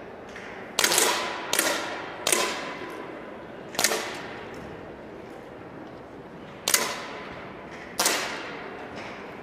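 Six sharp air pistol shots from several shooters firing in turn at irregular intervals. Each is a crisp pop with a brief echo from the hall.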